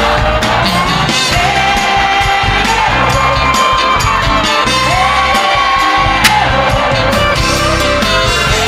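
Live sertanejo band and singers performing in a stadium, with held, gliding sung lines over the band and a large crowd shouting and cheering.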